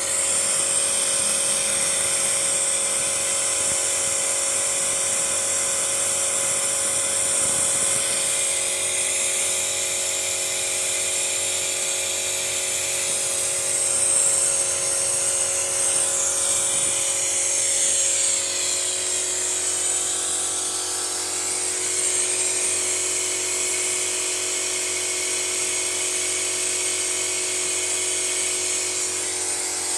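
Steady mechanical whine with a high hiss and a few steady tones, from a car's engine bay while carbon-cleaning fluid is fed into the engine through a hose from a hanging canister.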